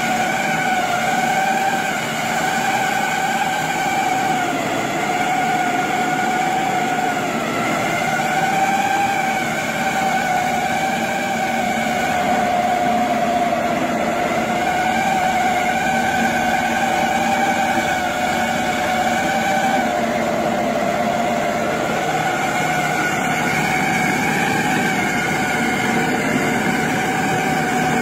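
Soybean cracking and skin-separating machine running steadily: a whine that wavers slightly in pitch over a constant noisy rush.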